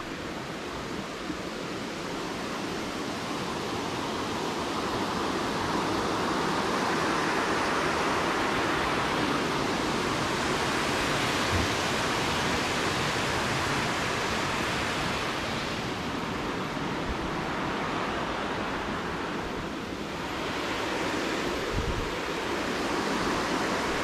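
Steady rushing of water spilling over a small weir in a concrete irrigation canal. It swells over the first several seconds and eases briefly a couple of times past the middle.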